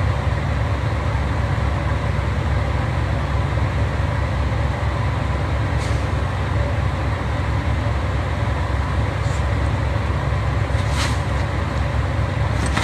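A steady low rumble, with a few brief faint ticks, the clearest about eleven seconds in.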